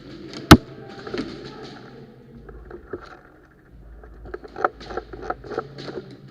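One sharp, loud crack about half a second in, like a single airsoft gun shot, then light rustling and, near the end, a quick irregular run of about seven small snaps and clicks.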